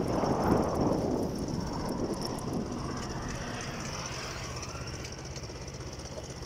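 Wind rushing over a phone's microphone on a moving motorcycle, with the motorcycle's engine and road noise underneath. The rush is strongest at the start and eases off over the first few seconds.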